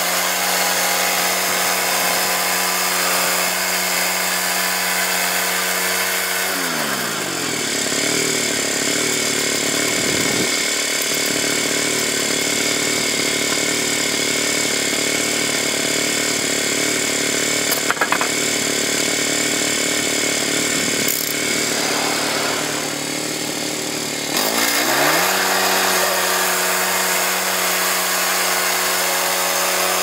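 Gas-engine portable band sawmill running steadily at speed; about seven seconds in the engine note falls to a low idle, with a brief clatter near the middle, and about 25 seconds in it climbs back up to full speed.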